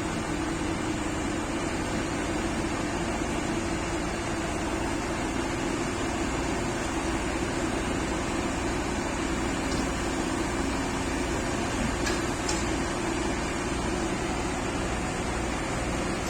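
Heavy diesel engine running steadily at constant speed, with a steady hum over an even hiss.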